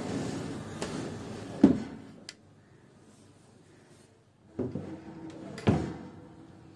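A wooden drawer slides open and stops with a knock about a second and a half in. A few seconds later it slides shut with another knock.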